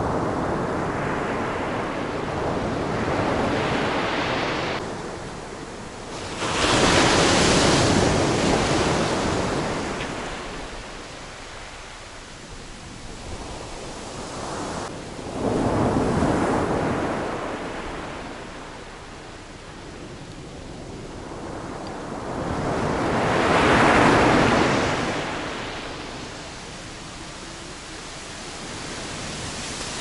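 Mediterranean surf breaking and washing up a sandy beach. Each wave swells up and falls away, the big ones coming about every eight seconds.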